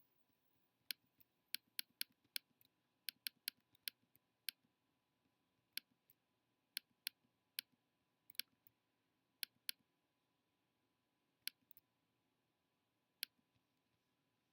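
Computer mouse button clicking: sharp single clicks at irregular intervals, some in quick runs of two to four, against near silence.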